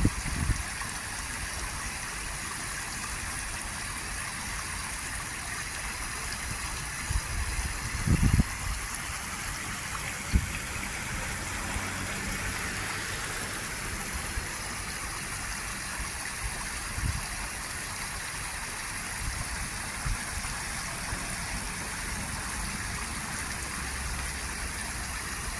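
Shallow stream running over and below a low concrete weir: a steady rush of water, with a few brief low bumps, the biggest about eight seconds in.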